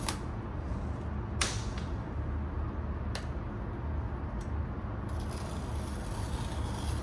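Hands handling and opening a laptop's cardboard box: a few sharp taps and clicks and a short swish of card or paper, then a soft rustle near the end, over a steady low background rumble.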